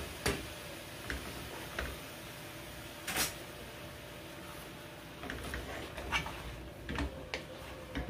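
Scattered knocks and clinks of metal pots and cooking utensils being handled on a stovetop, the loudest about three seconds in and a cluster of smaller ones in the second half.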